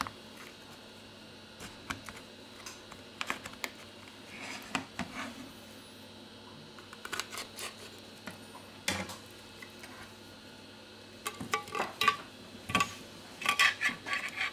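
Small clicks and scrapes of a thin pick prying around the edge of a Huawei P10 smartphone's back cover to free it from the frame, scattered at first and coming thicker and louder in the last few seconds as the cover comes away.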